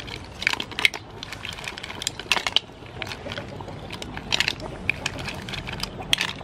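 Green mussel shells clattering as handfuls are scooped from a woven basket and dropped into a pot of curry broth: a run of irregular clicks and clacks.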